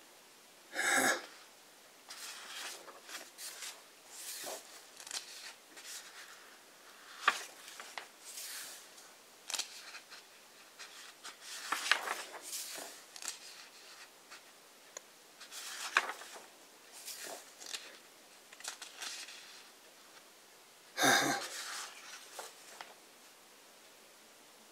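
Pages of a large hardcover book being turned by hand: repeated paper rustles and swishes with soft slaps as the pages settle. Two louder short bursts stand out, one about a second in and one near the end.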